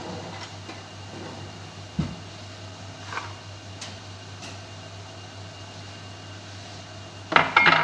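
Steady low kitchen hum with a light hiss, broken by a single knock about two seconds in and a brief, louder burst of clattering near the end.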